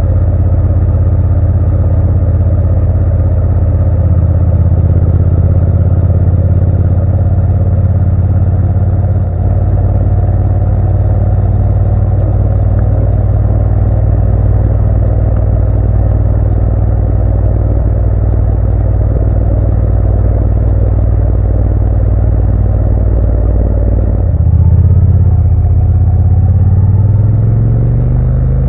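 Motorcycle engine running steadily while riding, with a brief dip about nine seconds in and a change in engine note near the end.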